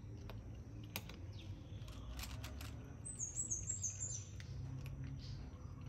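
A domestic cat chewing dry kibble, its crunching heard as scattered sharp clicks, over a low steady hum. About three seconds in, a small bird gives a quick run of about six high chirps, each a little lower than the last.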